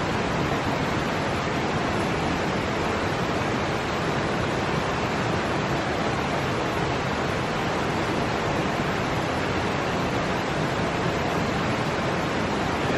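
Steady, unbroken rushing noise that holds one even level throughout.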